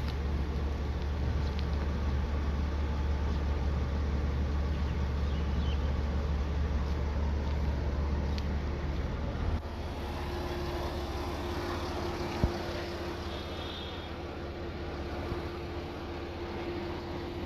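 Steady low vehicle hum that drops in level about halfway through, after which a faint steady tone sounds, with a single sharp click a few seconds later.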